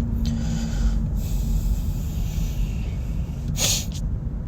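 Steady low rumble of road and engine noise inside a car cabin, with a short, sharp intake of breath about three and a half seconds in.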